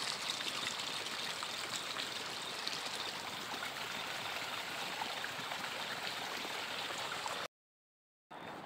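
Water running steadily through a small field irrigation channel, an even rushing and trickling. The sound cuts out abruptly for about a second near the end, then returns.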